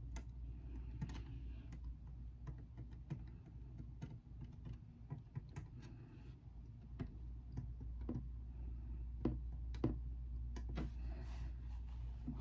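Scattered light taps and clicks of a pointed craft tool and fingertips pressing small glue-coated cardstock pieces down on a metal tray, with a few soft brushing rubs, over a low steady hum.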